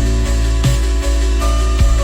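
Ambient relaxation music: sustained electronic tones over a deep bass drone, with a few soft drum hits.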